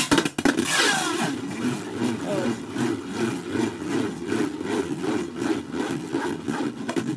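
A metal Beyblade spinning top is rip-launched into a clear plastic dome stadium and spins and rattles against the plastic bowl, a dense fast rattle that sets in suddenly at the launch and keeps going steadily.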